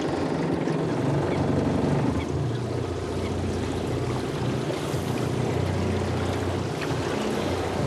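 Small boat's outboard motor running steadily, a low even hum under a hiss of water and wind.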